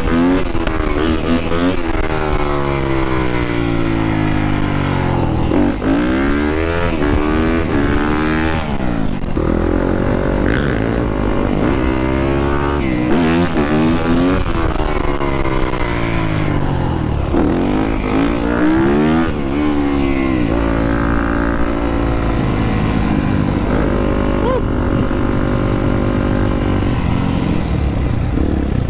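Yamaha dirt bike engine revving up and falling back again and again as it pulls through the gears, with a second dirt bike's engine rising and falling alongside it. The engine notes hold steadier for a few seconds past the middle.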